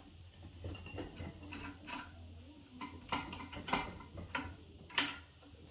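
Irregular metal clicks and clanks from a strut spring compressor being worked by hand as its lock nut is backed off and the finger opens, with a sharper knock about five seconds in.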